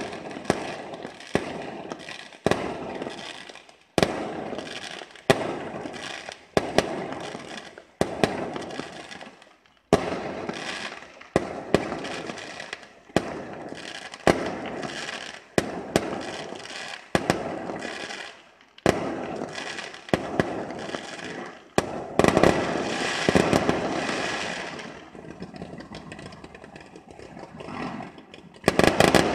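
Fireworks display: aerial shells bursting with sharp bangs about once a second, each trailing off in an echo. About three-quarters through comes a denser stretch of crackling, and near the end a loud cluster of bangs as a fan of rockets goes up.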